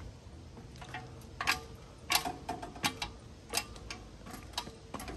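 Footsteps on a leaf-strewn dirt path, a faint click or crunch about every two-thirds of a second at an easy walking pace, over a faint steady hum.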